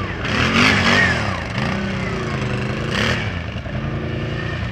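Quad bike (ATV) engines running, revved up and down about four times, with a louder rasping surge about a second in and a shorter one near three seconds.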